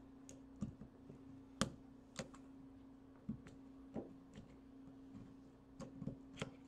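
Irregular sharp clicks and small snaps of an LED bulb's glued plastic cover being pried and picked at with a chisel while the bulb is gripped in pliers. About a dozen clicks come at uneven intervals, and the loudest is about a second and a half in.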